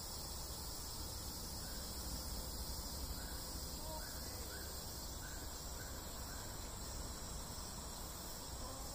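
Steady high-pitched drone of insects in tropical forest. In the middle of it, a bird gives short faint chirps about twice a second. A low rumble runs underneath.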